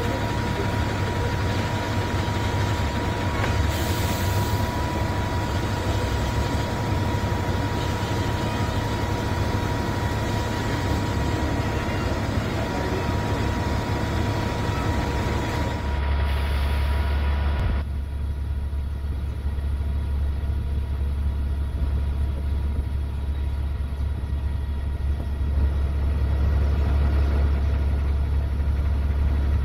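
A heavy vehicle engine idling with a steady low rumble. About sixteen seconds in the sound shifts to a deeper, heavier rumble with less hiss.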